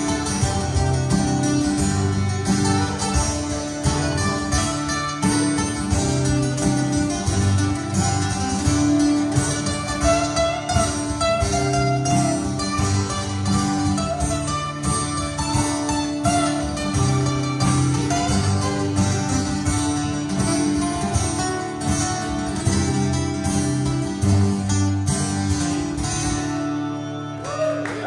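Live acoustic band playing an instrumental passage: strummed and picked acoustic guitars with a harmonica holding long notes over them. The music stops about a second before the end.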